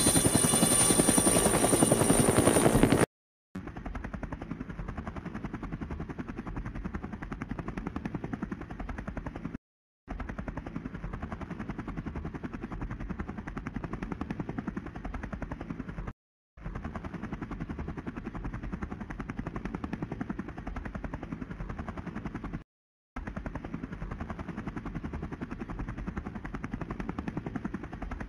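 Helicopter rotor sound effect. A louder helicopter runs for about three seconds and cuts off. Then a quieter, rapid, even rotor chop repeats as a loop of about six seconds, with a short silent gap between repeats.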